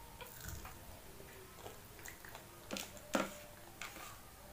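Mouth sounds of a child chewing appe, soft fried dumplings: scattered wet smacks and clicks, the loudest pair about three seconds in.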